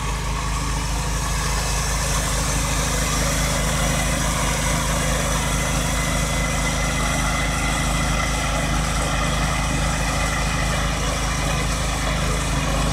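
Riding lawn mower engine running steadily at a constant speed.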